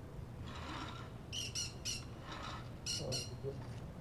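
A bird squawking: short, high, grating calls in quick runs of two or three, twice.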